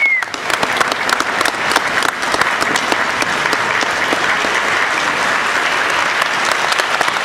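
Sustained applause from a large audience, many hands clapping at once.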